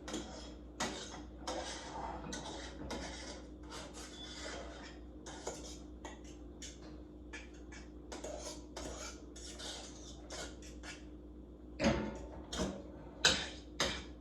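Kitchen utensils scraping and clinking against pots and dishes: a run of short scrapes and taps, with a few louder clinks near the end.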